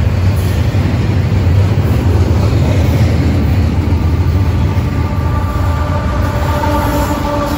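Double-stack container freight train rolling past close by, a steady rumble and clatter of wheels on rail. From about five seconds in, a steady multi-tone engine whine comes in and grows louder as a mid-train Canadian Pacific diesel locomotive draws near.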